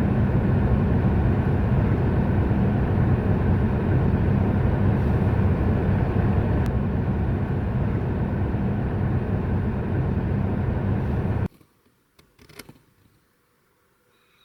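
Steady low rumble of a car driving, with no changes in pitch; it cuts off suddenly near the end, leaving near silence broken by a faint click.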